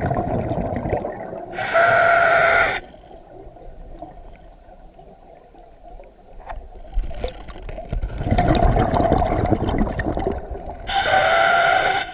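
Scuba diver breathing underwater through a full-face mask and regulator: a short hissing inhale with a whistle-like tone about two seconds in and again near the end, and a longer gurgling rush of exhaled bubbles after a quiet stretch.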